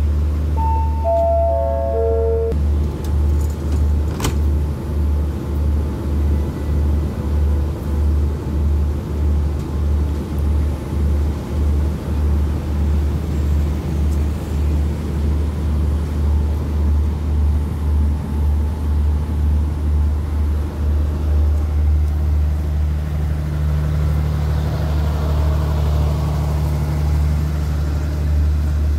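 Express train standing at the platform with its diesel engine running: a steady low rumble that throbs at a regular beat. Near the start, a short chime of four notes falls in pitch.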